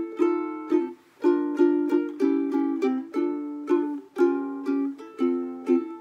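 A ukulele strummed in chords with no singing, a steady run of strokes with a brief break about a second in.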